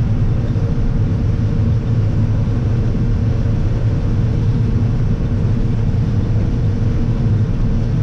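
Combine harvester running steadily while shelling corn: a constant low drone with a steady hum over it, heard from the operator's cab.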